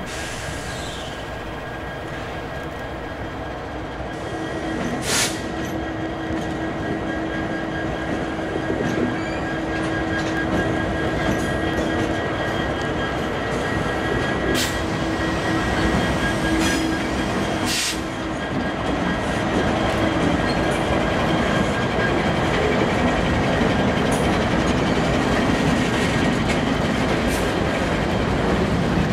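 EMD SD70ACU diesel-electric locomotive with its two-stroke V16 prime mover running as it rolls slowly past, trailing a second diesel and a boxcar, with a steady hum and a high whine. It grows louder as the train comes closer, and the wheels give a few sharp clacks on the track.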